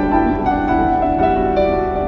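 Instrumental background music led by piano, with sustained notes that change every fraction of a second.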